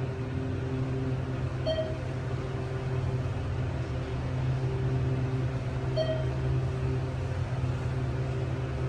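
Hydraulic elevator running, with a steady low hum from its pump and motor. A short electronic beep sounds twice, about two seconds in and about six seconds in.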